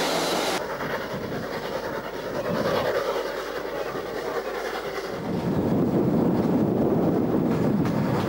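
Orenstein & Koppel-built Tr5-65 steam locomotive running with its train. It is heard first across open fields, then from a carriage window, where the train's running on the rails becomes louder and heavier about five seconds in.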